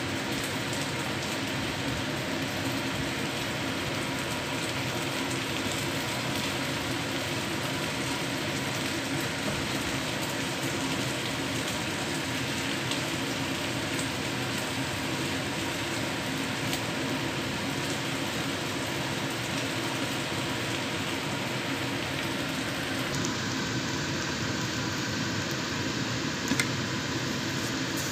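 Flat rice noodles, pork and bean sprouts sizzling steadily in a wok as they are stir-fried with a silicone spatula, with one sharp tap near the end.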